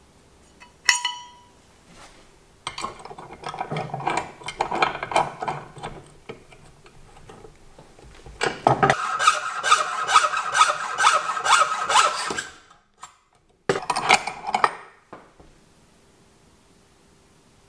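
A steel bicycle headset crown race, clamped in a vise, is cut by hand with rasping back-and-forth strokes in three spells, the middle one the longest and loudest. The cut is a slot that splits the race so it will slide onto the fork steerer. A single ringing metal clink comes about a second in.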